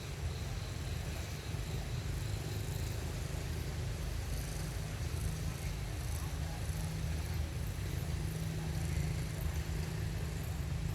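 Steady low rumble with a faint hiss above it, no clear events.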